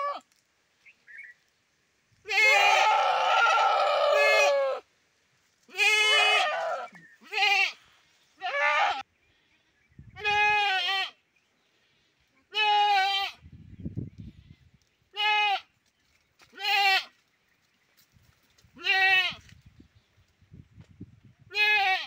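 Goats bleating: about ten separate calls, most under a second, with one long, harsh bleat of over two seconds starting about two seconds in. Faint low rustling sounds come between some of the calls.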